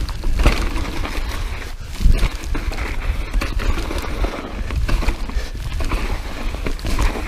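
Mountain bike ridden over rough, rocky dirt and snow, heard from a handlebar-mounted camera: a heavy wind rumble on the microphone, tyre noise and frequent knocks and rattles of the bike over rocks.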